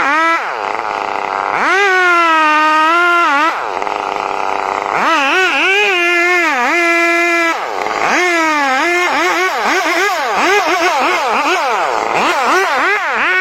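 Chainsaw engine running hard, its pitch repeatedly dropping and recovering as it bogs under load in the cut. The pitch swings come faster in the second half.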